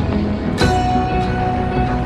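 Instrumental background music: held notes over a low sustained bass, with a new note struck about half a second in.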